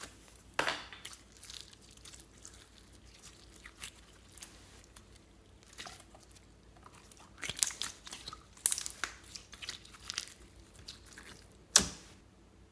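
Irregular crackles and crunches of slime-making material being worked by hand, in scattered clusters, with one sharp loud crack near the end.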